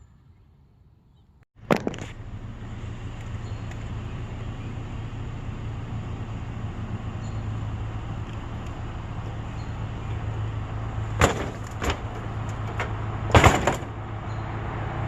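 Motor vehicle running with a steady low hum and road rumble that starts abruptly about a second and a half in. A few sharp knocks or clunks come near the end.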